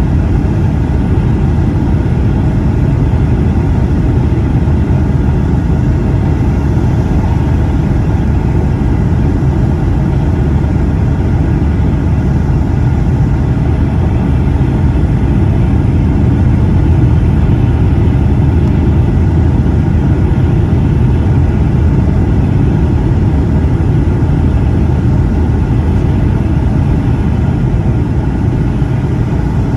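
Steady, loud cabin rumble of a Boeing 757-200's jet engines and airflow, heard from a window seat in the rear cabin during the landing sequence.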